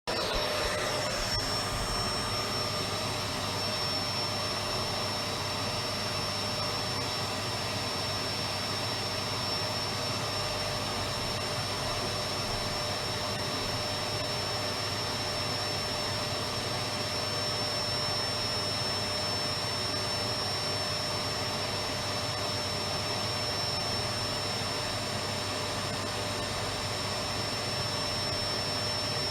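Electric vacuum cleaner running steadily: a dense motor-and-airflow rush with a steady high whine. It cuts in suddenly at the start and then holds an even level.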